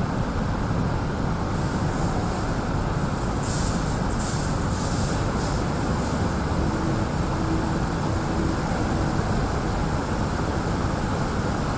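Automatic train-wash spray system running as a high-speed train is drawn slowly through: a steady rushing noise of water spray and machinery, with a few bursts of sharper hiss in the first half.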